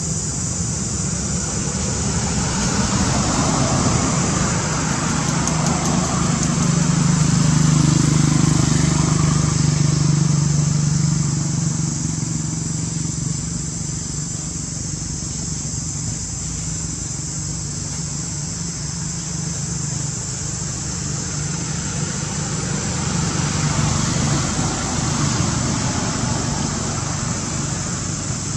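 A motor vehicle's engine running, growing louder about a quarter of the way in and fading again, over a steady hiss.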